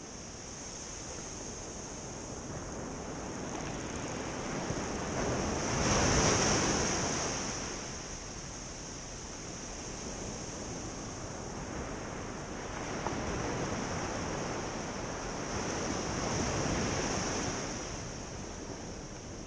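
Ocean surf breaking and washing up a beach, swelling louder about six seconds in and again around sixteen to seventeen seconds, over a constant high hiss.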